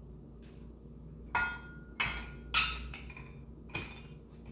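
Chrome metal parts of a Saladmaster food processor clacking together as they are fitted: four sharp knocks, each with a short ring, after a faint tap near the start. The loudest comes about two and a half seconds in.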